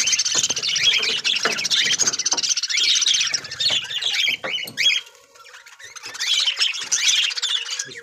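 A flock of caged lovebirds chirping rapidly and continuously, many calls overlapping, thinning for a moment about five seconds in before picking up again.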